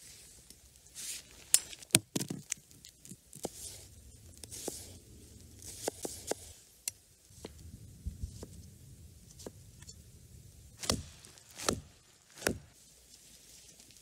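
Knife cutting an onion on a wooden cutting board: irregular sharp knocks, loudest about two seconds in and three more near the end, with soft rustling in between.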